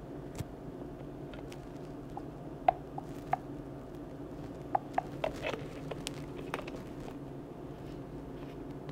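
Light handling noises: a scattered run of small clicks and taps through the middle few seconds, over a steady low hum of room tone.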